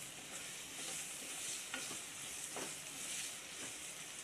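Chopped onions sizzling in a little oil in a non-stick pan over high heat while a wooden spatula stirs them, with a few light scrapes of the spatula against the pan.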